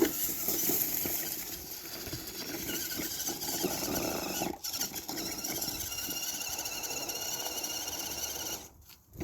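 Redcat Everest 10 RC crawler's electric motor and drivetrain whining under hard throttle, with a steady high squeal. The trigger is held hard, so the tires spin rather than grip. It drops out briefly about halfway through and stops shortly before the end.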